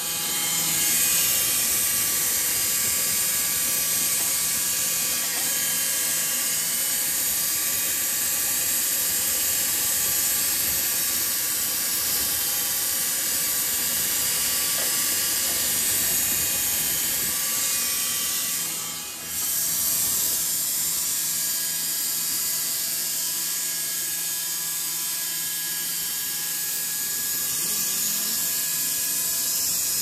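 Horizontal band sawmill running and cutting through a log: a steady, loud machine whine under a high hiss of the blade in the wood, with a brief dip about two-thirds through.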